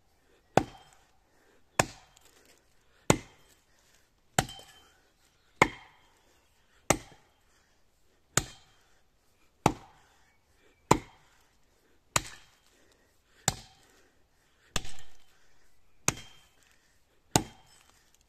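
Axe chopping into the trunk of a standing pine, cutting the felling notch: sharp, even chops about one every 1.3 seconds, fourteen in all.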